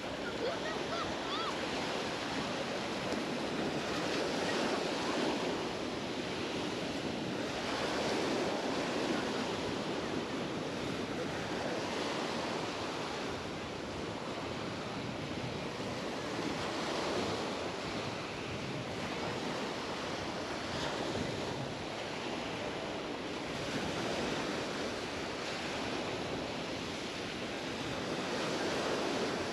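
Mediterranean waves breaking and washing up on the beach: a steady surf hiss that swells every several seconds.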